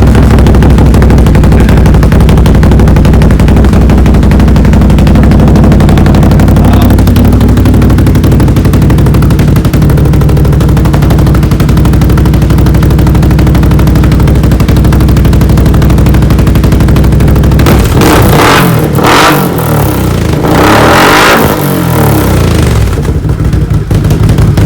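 Can-Am Outlander 850's Rotax V-twin running through a new Yoshimura slip-on exhaust: it idles loudly and steadily, then is revved up and down a few times from about three-quarters of the way in, before dropping back to idle.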